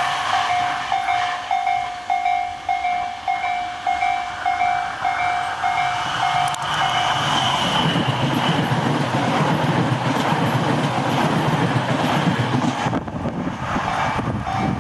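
A Japanese level-crossing warning bell sounds repeated electronic dings. About eight seconds in, a Tobu Noda Line electric train passes over the crossing, and the noise of its wheels on the rails covers the bell until near the end.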